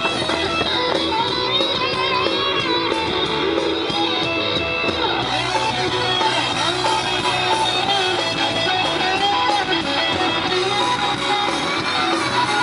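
Rock music with strummed electric guitar, playing steadily throughout.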